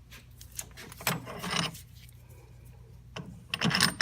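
Steel bearing-press adapter discs and bolt being handled and fitted together: metal scraping and clinking in two spells, about a second in and louder near the end.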